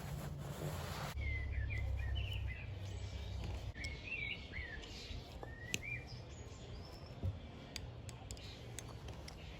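Small birds chirping repeatedly in the background over a low steady hum, with two sharp clicks in the second half.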